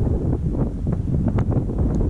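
Wind buffeting the microphone in a dense, low rumble, with a few short faint ticks about halfway through and again near the end.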